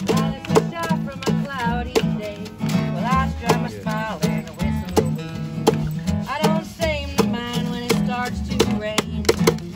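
Acoustic guitars strumming a steady rhythm, with a gliding, wavering melody line over them and sharp taps on a wooden box keeping time.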